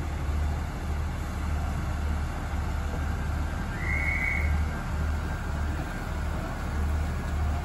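Northern Ireland Railways Class 3000 diesel multiple unit standing at the platform, its underfloor diesel engines idling with a low, steady rumble. A brief high whistle-like tone sounds once, about four seconds in.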